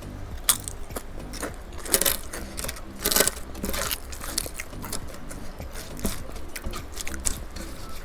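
Close-miked eating: chewing and crunching of food, with scattered sharp clicks. The loudest crunch comes about three seconds in.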